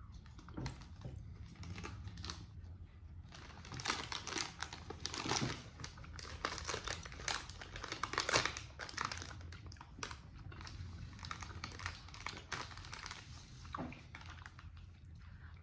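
Plastic wrapper of the energy chews crinkling and rustling in the hands, in irregular crackly clicks that are busiest in the middle.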